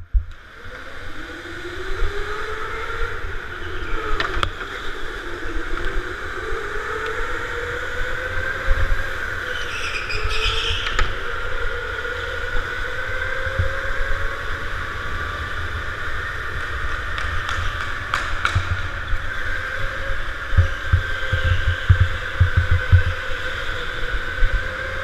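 Electric indoor go-kart's motor whining, its pitch sliding up and down as the kart speeds up and slows through the corners, over a low rumble and thumps from the chassis shaking.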